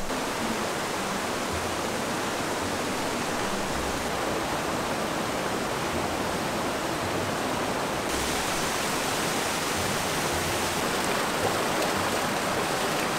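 Rocky mountain stream rushing steadily over boulders and small cascades. The rush turns brighter about eight seconds in.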